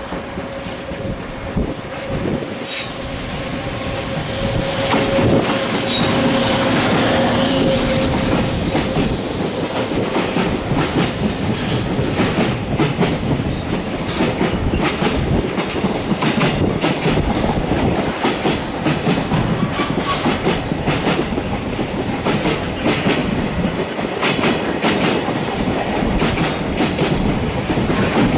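Container freight train hauled by an EF210 electric locomotive passing close by: loud rolling of steel wheels on rail with rapid clickety-clack over the rail joints and brief high wheel squeals. It grows louder over the first five seconds as the train comes beneath, with a steady tone in the first several seconds while the locomotive goes by.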